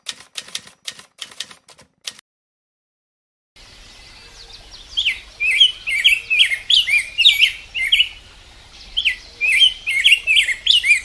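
A quick run of typewriter-style key clicks for about two seconds, then a short silence. After that come birds chirping in many short, repeated calls over a faint outdoor background.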